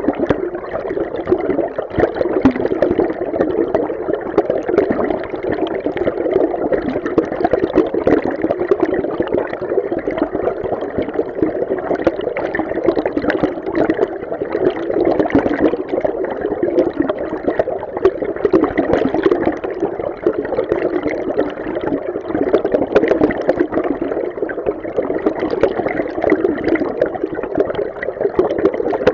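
River water flowing, heard underwater: a steady, muffled rush with a constant busy churning texture.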